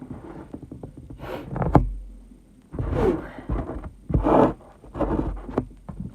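A woman's short, breathy sniffs and gasps, about five in a row, through a nose burning from chhinkni sneezing powder.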